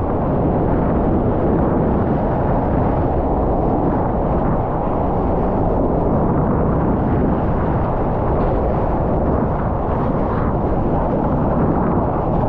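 Low, steady rush of wind buffeting the camera microphone and water streaming past as a surfer rides a wave, muffled by the camera.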